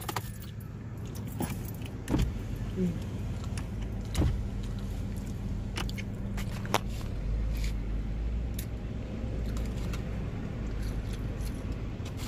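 Car keys jangling, with scattered clicks and knocks of a hand handling the phone close to the microphone, over the car's steady low hum, which grows stronger about halfway through.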